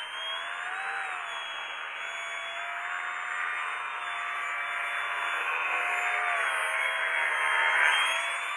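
Electric motor and propeller of a small foam-board RC aerobatic plane whining as it hangs nose-up in a hover and then passes close. The pitch rises and falls with the throttle, and the sound grows loudest near the end as the plane comes by.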